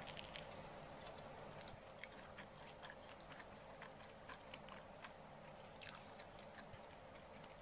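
Quiet, close-miked eating sounds: irregular soft clicks of chewing, along with fingers tearing and picking up injera flatbread.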